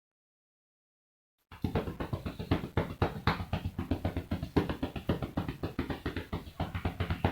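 Rapid, rhythmic clapping of cupped hands on a patient's back: chest percussion, done to loosen mucus so it can be coughed up. It starts suddenly about a second and a half in, after dead silence.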